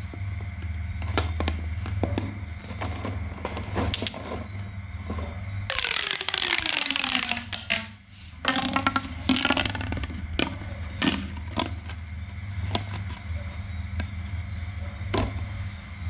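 Close-up crafting sounds of a handmade pop toy being worked by hand: scattered sharp clicks and crackles, with a loud rasping burst that falls in pitch for about two seconds near the middle, over a steady low hum.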